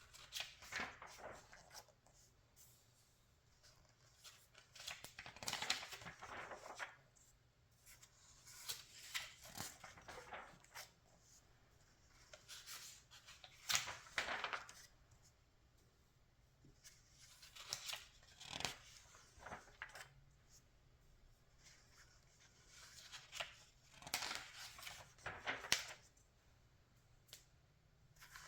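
Pages of a magazine being turned by hand, a short paper rustle every few seconds, about six turns in all.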